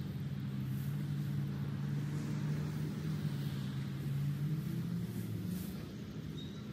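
A vehicle engine running with a steady low hum that fades out about five and a half seconds in.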